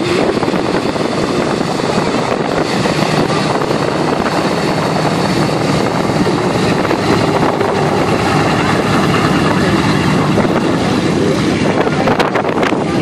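A B-17 Flying Fortress taxiing past, its four Wright Cyclone nine-cylinder radial engines running steadily at low taxi power. Wind buffets the microphone near the end.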